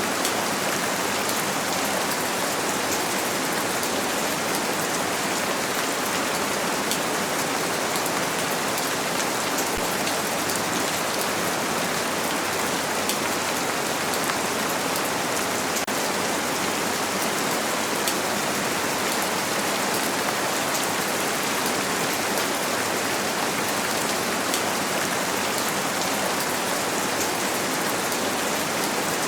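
Rain falling on a window, a steady even hiss with small drop ticks scattered through it, blended with white noise.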